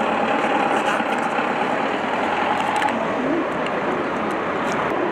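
Steady noise of a busy city street, a continuous hum of traffic and general outdoor din.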